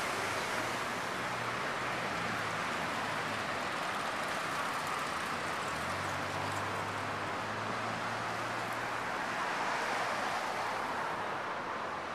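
Steady street background noise of traffic, with a low vehicle engine hum coming in twice.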